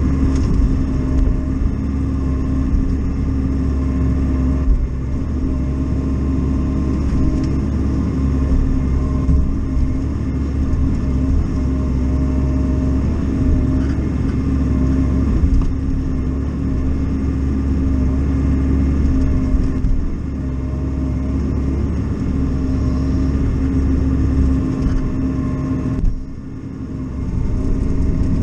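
Bobcat E42 mini excavator's diesel engine running steadily while the arm and bucket move concrete chunks, heard from inside the closed cab. The engine sound dips briefly near the end, then picks back up.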